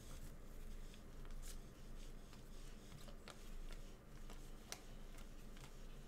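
Football trading cards being handled and flipped through, with a few faint, scattered clicks from the cards.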